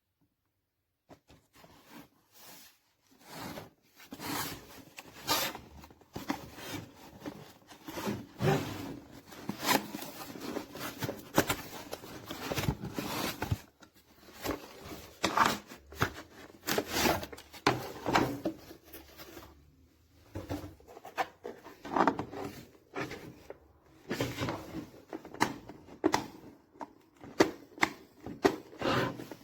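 Handling of a portable folding stool: irregular knocks, clicks and rubbing as it is moved, unfolded and set down.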